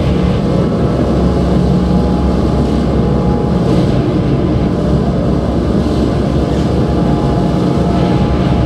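Drone music: a thick, steady mass of low held tones with a noisy wash above, no beat and no change in level.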